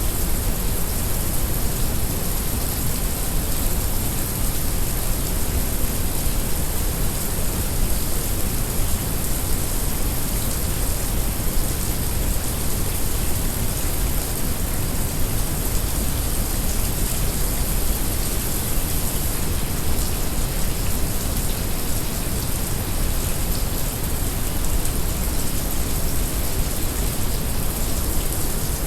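Heavy rain making a steady, dense hiss, layered with brown noise that adds a deep, even rumble underneath.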